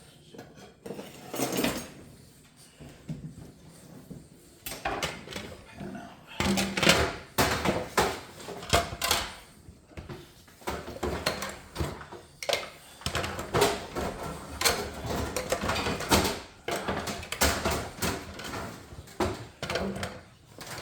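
Handling noises from meat prep: irregular knocks, clatter and rustling, growing busier about six seconds in.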